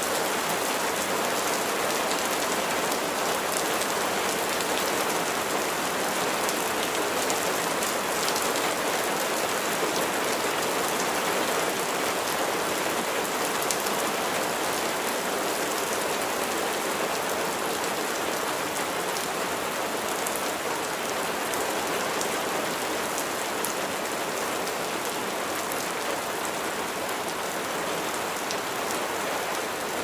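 Spring rain falling steadily: an even hiss of rain with individual drops ticking through it.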